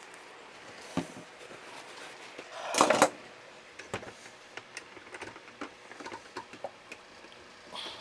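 Handling noises from hands working on a boat refrigerator's compressor unit: scattered light clicks and knocks, with one louder clattering rustle just before three seconds in.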